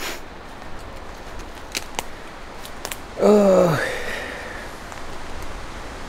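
A man's short wordless vocal sound, falling in pitch, about three seconds in, over a steady rustle of wind in the trees, with a few light clicks before it.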